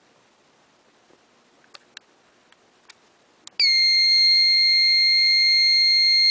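A few faint clicks, then about three and a half seconds in a fire alarm panel's piezo buzzer sounds one loud, steady, high-pitched tone for nearly three seconds and cuts off.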